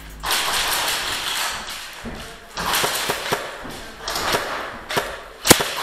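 Airsoft guns firing in a plywood-walled indoor arena: scattered sharp shots and BB impacts, the loudest pair of cracks near the end, over stretches of hissing noise.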